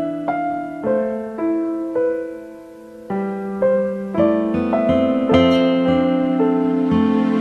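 Slow piano background music, single notes and chords struck and left to ring, softer for a moment about two to three seconds in.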